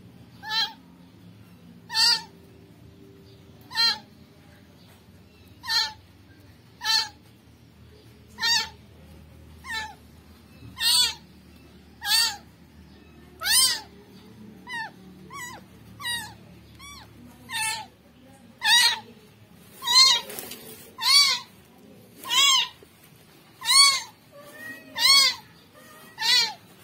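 Newborn kitten meowing over and over, a short high-pitched cry about every second or so, each rising and falling in pitch; the cries grow louder in the second half.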